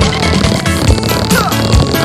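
Loud electronic music with a steady kick-drum beat, about two beats a second, and falling synth sweeps.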